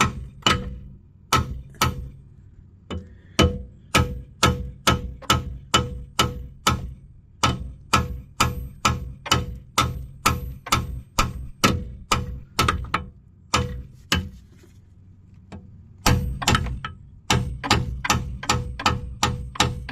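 A hammer striking a 2009 Volkswagen Tiguan's front strut in a steady run of blows, about two a second, each with a short metallic ring. The blows knock the strut round and down so it seats in its slot. They stop for about two seconds two-thirds of the way through, then carry on.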